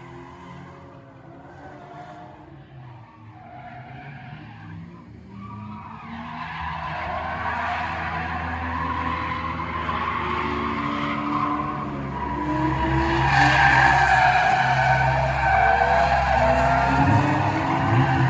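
Drift car engines revving hard with tyres squealing in a slide, quiet at first and getting much louder about a third of the way in as the cars come closer.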